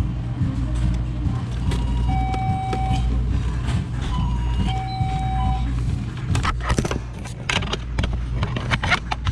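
A steady low machinery hum, with two identical electronic beeps of just under a second each, the second about two and a half seconds after the first. In the last three seconds comes a quick run of sharp clicks and rattles, like parts and connectors being handled.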